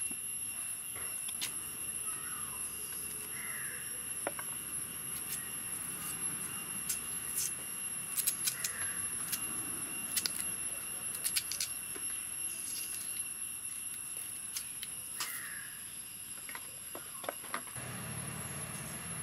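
Knife clicks and taps as raw cassava roots are peeled and cut over a steel plate, with a few short bird calls and a steady high tone behind.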